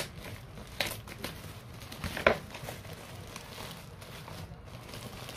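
Scissors cutting through black plastic wrapping and tape on a cardboard box, with the plastic crinkling: a few sharp snips, the loudest a little over two seconds in.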